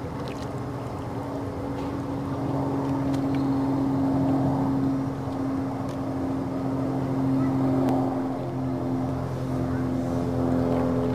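A motor running steadily with a low, even-pitched hum. A second, slightly higher tone joins in about two-thirds of the way through and again near the end.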